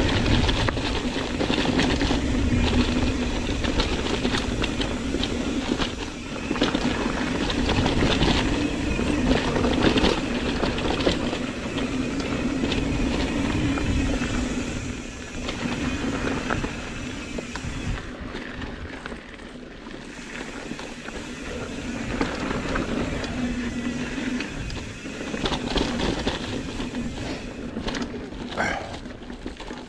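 Mountain bike ridden fast down a dirt singletrack: wind on the microphone, with the bike rattling and knocking over roots and rocks and a humming tone that comes and goes. The noise eases off about halfway through.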